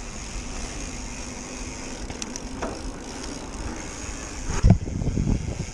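Propain Tyee enduro mountain bike rolling fast down an asphalt road: steady tyre and wind noise, with a faint hum from the knobby tyres on the tarmac early on. From about four and a half seconds in, loud uneven low rumbling as wind buffets the microphone.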